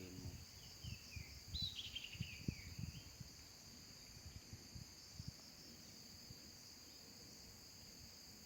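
Faint steady high-pitched drone of insects, with a short run of high, falling bird chirps about a second to three seconds in and a few low knocks of handling noise.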